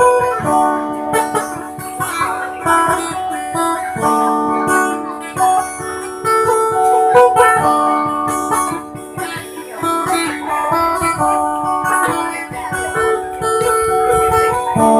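Sape', the Dayak boat-shaped lute, playing a quick plucked melody over a steady drone.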